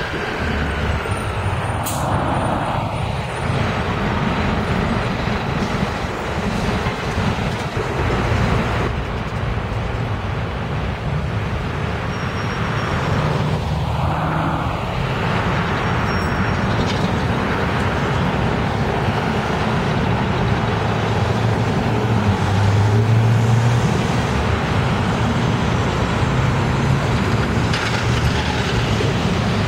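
City transit buses driving past in street traffic: steady diesel engine drone and road noise, swelling as buses go by about two seconds in and again around fourteen seconds in.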